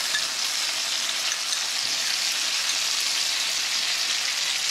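Butter sizzling steadily in a skillet with a dollop of honey and orange juice just added, as a hiss that holds even throughout.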